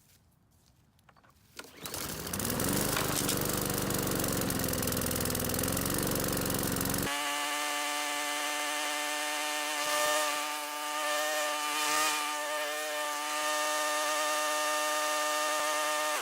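Small push-mower engine pull-started, catching at once and revving up, then running at a steady speed. The carburetor's clogged emulsion tube has just been cleared of a small plastic fragment, and the engine now starts on the first pull.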